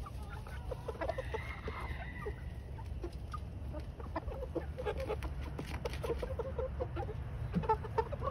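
Young chickens (cockerels) clucking softly: a steady run of short, low clucks, scattered and irregular.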